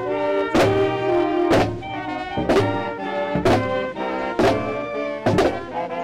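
Marching band playing: sustained brass chords over a steady drum hit about once a second.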